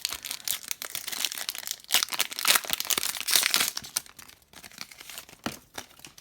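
Foil wrapper of a hockey trading-card pack being torn open and crinkled in the hands, a dense run of crackles that thins out and quietens over the last two seconds.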